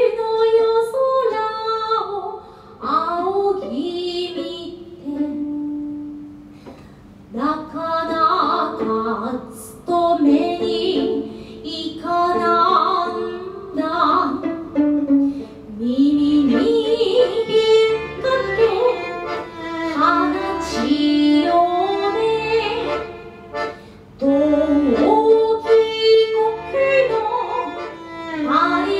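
A woman singing with violin and accordion accompaniment, in phrases separated by short breaks. From about halfway through, low accordion bass notes pulse in a steady rhythm under the voice.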